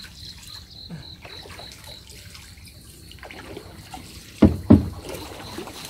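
Water trickling and dripping, with two heavy thumps close together about four and a half seconds in.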